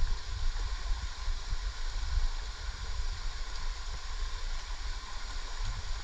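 Steady rush of a shallow stream flowing over rocks, with an uneven low rumble on the microphone underneath.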